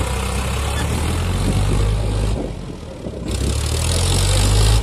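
Eicher 557 tractor's diesel engine running under load while it pulls a rotavator through the soil, a steady low rumble with dense mechanical noise over it. The noise drops away for about a second near the middle, then comes back.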